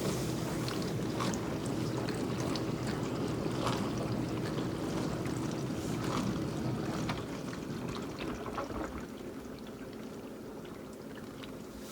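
Miele Incognito dishwasher's circulation pump running, with water spraying and splashing inside the tub, then dropping away about seven seconds in. The pump keeps cutting out early: something is wrong with the pump.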